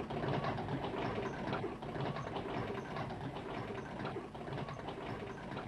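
A small machine clattering rapidly and steadily.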